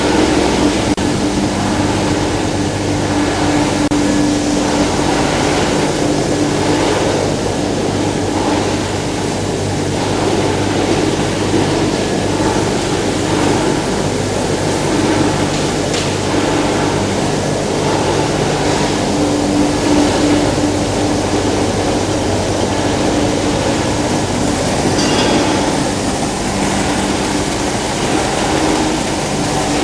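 PP woven bag and film washing line running: the machinery hums steadily under a dense rushing noise, with no change in load.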